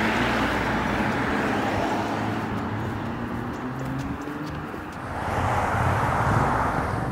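Road traffic on a town street: cars running past with a steady rush and low engine hum, swelling louder again about five seconds in as a vehicle comes by.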